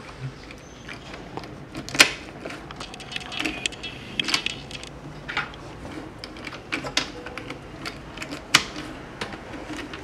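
Plastic Rubik's Cube pieces clicking and tapping as they are handled and slid into place on the partly rebuilt cube, with two sharper clicks about two seconds in and late on.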